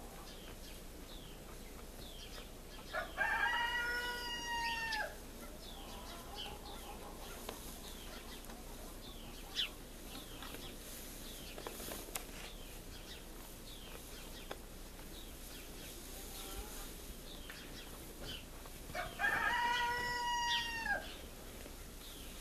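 A rooster crowing twice, each crow about two seconds long and some sixteen seconds apart, over faint crunching of cattle chewing hay.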